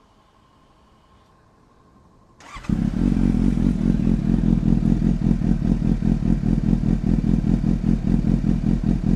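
Suzuki GSX-S750's inline-four engine starting up about two and a half seconds in, then idling steadily with a deep, even pulse through an SC Project slip-on exhaust that still keeps the pre-silencer.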